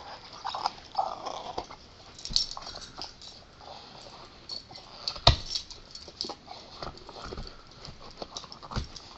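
A dog chewing and gnawing a rubber toy bear, tearing pieces off it: irregular crunches and clicks of teeth on rubber, with a sharp snap about five seconds in and another near the end.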